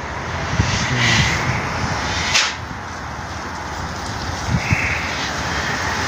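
Nitrogen from a cylinder hissing steadily through the hose and tube while it flushes the air conditioner's refrigerant lines, with a brief louder burst about two and a half seconds in.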